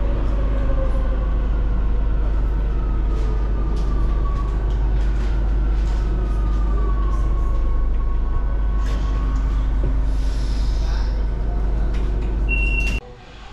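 Rome metro train running through a tunnel, heard from inside the car: a steady rumble with frequent clicks of the wheels and a whine that slowly falls in pitch. A short high beep sounds near the end, then the sound cuts off abruptly.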